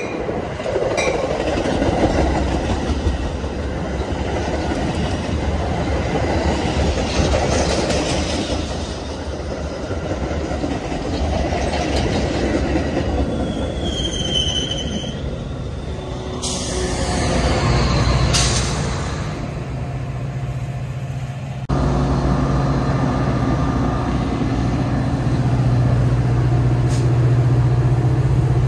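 Metra bi-level commuter train passing close by: a steady rumble of wheels on the rails with clacking and a short high squeal about halfway through. After a sudden change near the end, the train's diesel locomotive runs close by with a steady low hum.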